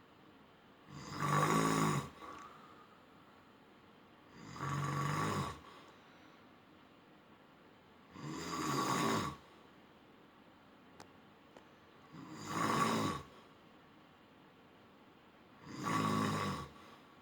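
A man snoring in his sleep: five snores, each about a second long, coming at a steady pace of roughly one every four seconds, with quiet breathing pauses between them.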